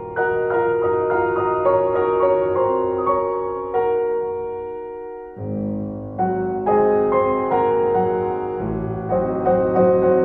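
Background piano music: a gentle melody of single struck notes, each fading away, with lower notes joining about halfway through.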